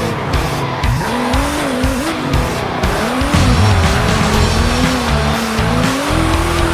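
Small electric motor of a remote-control off-road toy car whining, its pitch rising and falling as the car speeds up and slows, with background music.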